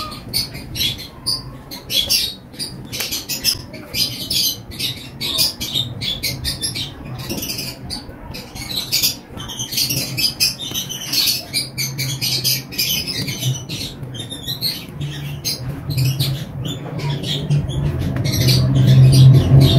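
Plastic-insulated electrical wires being handled and worked close up: irregular rustling and light clicking throughout. A low hum builds and grows louder near the end.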